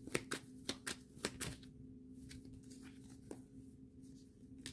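A tarot deck being shuffled by hand: a quick run of crisp card snaps for about a second and a half, then a single snap later on, over a faint steady hum.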